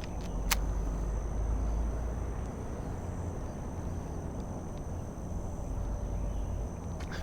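Steady high-pitched insect drone, like crickets, with a low rumble underneath and a single sharp click about half a second in.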